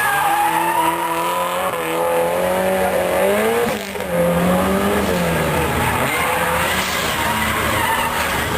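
Competition car engine revving hard, its note climbing and falling, with tyres squealing. The engine briefly drops off about four seconds in, then pulls again.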